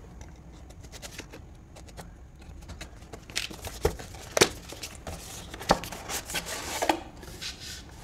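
Thin cardboard retail box being slit with a razor blade and torn open by hand: quiet scraping at first, then several sharp snaps of the card about halfway through, followed by paper and card rustling.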